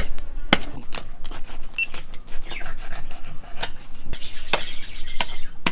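Knife filleting a large fish, the blade scraping along the backbone and ribs with irregular sharp clicks as it meets bone, and a longer scrape about four seconds in.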